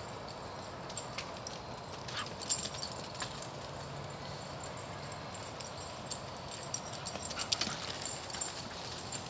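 Running footfalls on grass and dry leaves from a sprinting greyhound: a few short clusters of light thumps and crackly clicks over a steady hiss.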